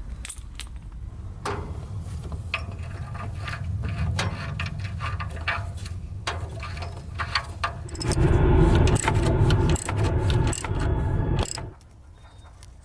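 Tools and metal parts clinking and scraping during work on the engine's EGR plumbing, over a low rumble. A louder low hum runs for about three and a half seconds in the second half and cuts off suddenly.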